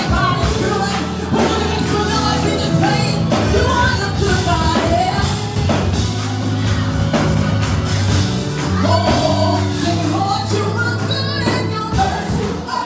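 Live gospel music: a lead singer and backing vocalists singing over a full band, with bass and drums, played loud in a large room.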